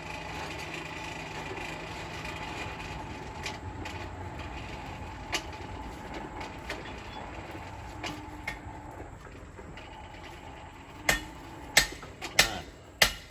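Steady running noise of a forge while the knife blade heats, then about four sharp hammer blows on the hot steel and anvil near the end as the blade is thinned out.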